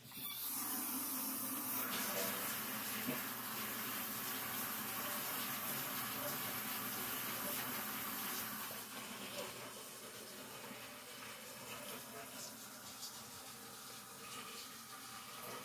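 Water running steadily from a tap into a sink. It is turned on at the start and off at the end, and runs quieter after about nine seconds.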